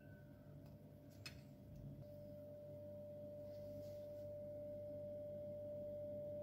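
A single steady pure tone, like a held electronic note, fades in about two seconds in and slowly grows louder over a faint low hum, with one faint click just after a second.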